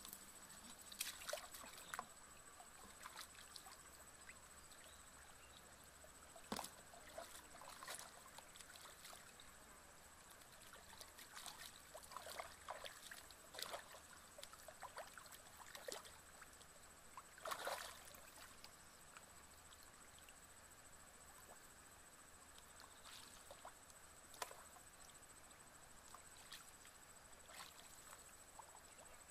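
Faint splashing and sloshing of shallow muddy water as a person wades and feels through it by hand for fish. The splashes come in scattered short spells, busiest about a second in, around twelve to fourteen seconds, and near eighteen seconds.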